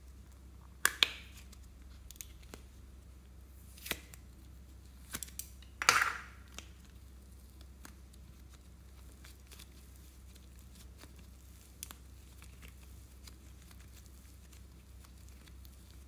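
Hard plastic heart-shaped slime cases clicking open, followed by a sticky tearing pull about six seconds in as the slime is peeled out of the case. After that come only faint soft clicks and squishes as the slime is handled.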